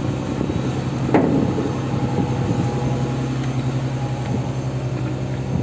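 Fishing boat's engine running with a steady low hum.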